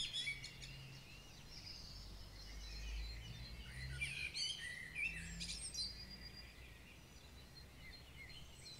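Wild birds chirping and singing in short, quick phrases, busiest around the middle, over a faint low rumble.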